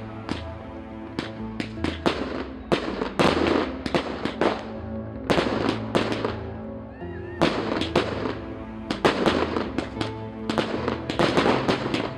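Aerial fireworks going off in clusters of sharp cracks and bangs, over background music with a low bass line.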